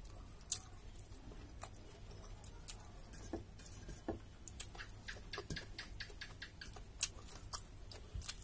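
Close-up eating sounds: irregular soft clicks and smacks of chewing, with fingers mixing rice on a steel plate, coming more often after the middle.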